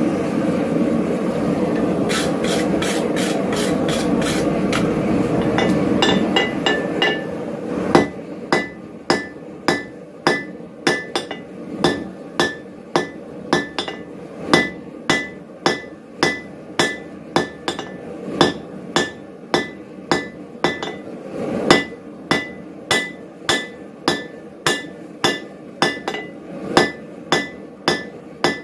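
Blacksmith's hammer striking red-hot steel on an anvil, drawing out a taper: steady blows about two a second, each with a bright anvil ring. For the first six or seven seconds, quicker strikes sit over a loud steady rushing noise that then fades out.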